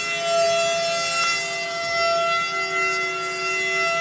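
Background music of long, held chord notes, changing pitch in small steps now and then.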